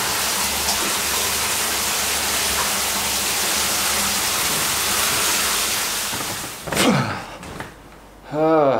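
A shower spraying steadily behind the curtain, cutting off about seven seconds in with a falling swish. Near the end a man's voice gives a short sigh falling in pitch.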